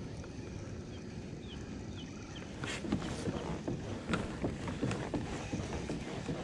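Wind on the microphone and water lapping against a plastic kayak, with irregular clicks and knocks from about three seconds in as a baitcasting reel is handled and cranked.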